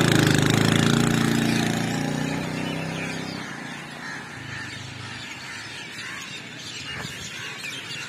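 Motorcycle engine passing close, then fading into the distance over about three seconds.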